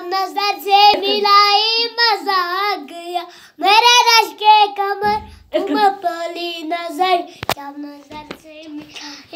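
A young boy singing in a high voice, the pitch wavering and bending through held notes, in phrases broken by short pauses.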